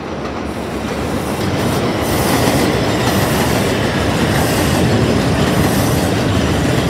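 R142 subway train approaching and running past on an elevated steel track, its wheels clattering on the rails. The sound grows louder over the first two seconds and then holds steady as the cars go by.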